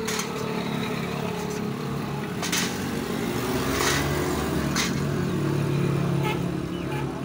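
A vehicle engine running nearby, its pitch shifting and rising a little after the middle. Over it come a few sharp metal clicks from carburettor parts and a screwdriver being handled.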